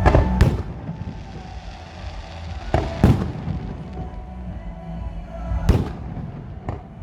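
Aerial fireworks bursting: loud bangs in pairs near the start, about three seconds in and again near six seconds, plus a single sharp crack near the end, each trailing off in a rumbling echo.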